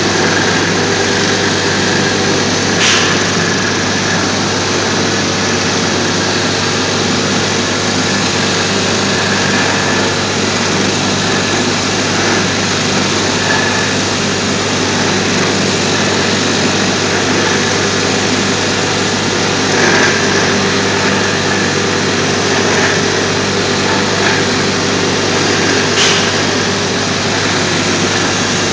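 Single-head concrete floor grinder with an electric motor and diamond plate, running steadily as it grinds paint off a concrete floor. The grinding noise and motor hum stay constant, with a few brief sharp ticks.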